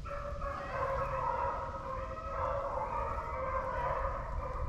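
Pack of beagles baying in chorus while running a swamp rabbit's trail, several long overlapping howls at once.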